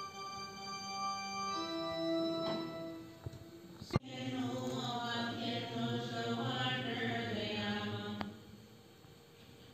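Church organ holding sustained chords. After a sudden click about four seconds in, voices sing a chant over the organ for about four seconds, then the music drops away.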